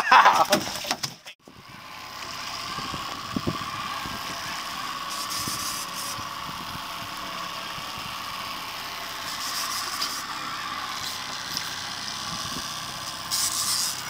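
Boat's outboard motor running steadily with a constant hum, under short bursts of hiss a few times. A brief voice is heard at the very start.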